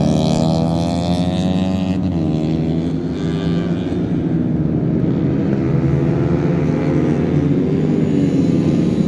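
Motors running loud and steady, their pitch rising and falling.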